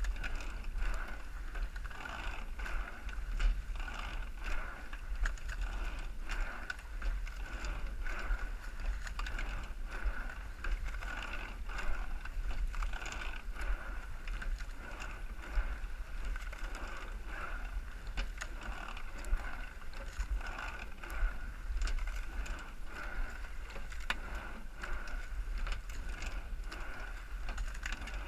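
Rowing eight (8+) racing shell being rowed at race pace: oars clunk in their oarlocks and sliding seats roll on their tracks, making rhythmic knocks that repeat stroke after stroke over a steady rushing hiss and low rumble.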